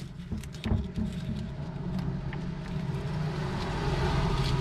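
Nylon strap webbing and a plastic buckle handled around a gas bottle, with a few sharp clicks in the first second. Underneath is a steady low rumble that slowly swells.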